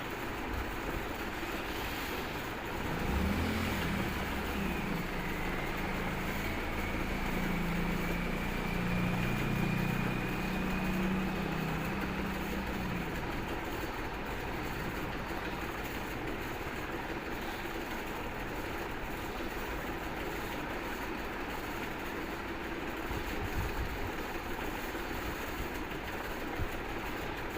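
Steady background noise with a low engine drone that swells about three seconds in and fades out after about thirteen seconds.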